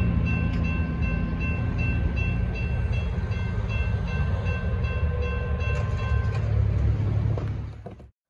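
Railroad crossing warning bells ringing in quick repeated strikes as the gate arms rise after the train has cleared, over a loud low rumble. The bells stop about six and a half seconds in, and the sound fades out and cuts off near the end.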